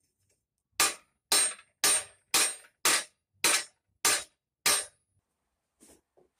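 Hammer blows on sheet steel held on an anvil, shaping and bending the plate. Eight sharp ringing strikes come evenly, nearly two a second, starting about a second in.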